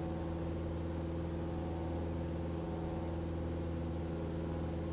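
Cessna Skyhawk's piston engine and propeller droning steadily at climb power just after takeoff, with a faint steady high-pitched whine over it.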